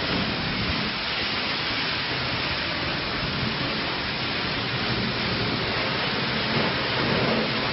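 Car-wash high-pressure wand spraying water onto a metal boat fuel tank and the wet concrete floor, rinsing off degreaser foam: a steady, unbroken hiss of spray.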